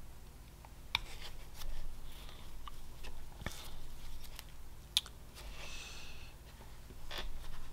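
A Sergey Belov whittling knife slicing into basswood in short carving cuts: brief scraping shaves and a few sharp clicks as the blade bites and small chips come away, spaced irregularly.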